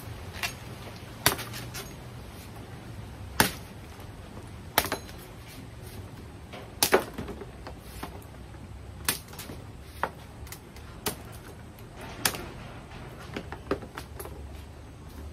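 Bolo knife chopping a dry palm frond stalk (palapa) into pieces: about a dozen sharp chops at irregular intervals, roughly a second apart.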